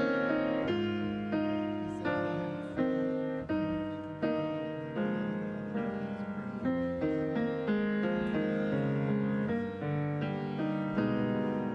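Piano music at a slow pace: notes and chords struck and left to ring, a new one about every second.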